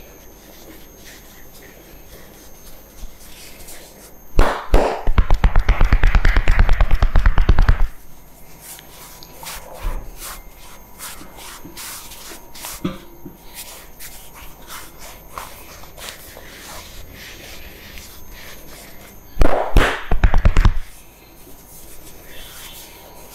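Barber's hands working a head massage: soft rubbing of hair and skin, broken twice by rapid rhythmic slapping or chopping strikes on the head. The first burst lasts about three and a half seconds and starts about four seconds in; the second is shorter, near the end.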